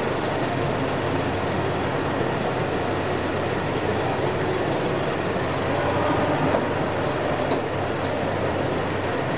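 Steady background din of a busy exhibition hall, an even noisy roar with a faint low hum underneath and no distinct events.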